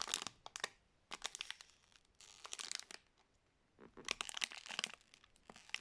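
Crinkling and rustling from squishy toys and their wrapping being handled, in about four short bursts with quiet gaps between.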